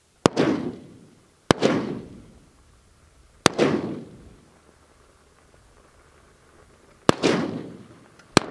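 Five shots from an AR-style rifle, fired at uneven intervals, each a sharp crack followed by a long fading echo.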